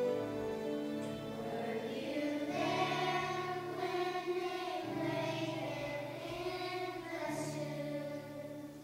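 Children's choir singing over an instrumental accompaniment. The voices come in about two seconds in, and everything grows softer near the end.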